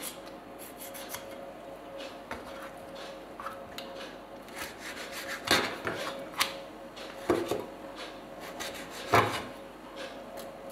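Kitchen knife scraping and tapping on a plastic cutting board while a raw flounder is skinned and picked apart by hand, with several sharper knocks in the second half. A faint steady hum runs underneath.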